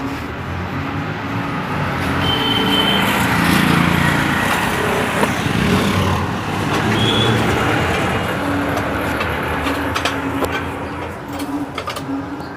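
A steady chorus of short, low calls repeating over and over, which people locally say are frogs, over a broad wash of noise that swells and fades over several seconds, like a passing vehicle.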